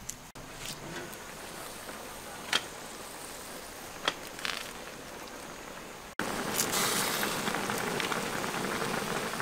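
A few light clicks and knocks, then from about six seconds in a steady hiss of a large pan of chicken and cabbage steaming and simmering over the fire.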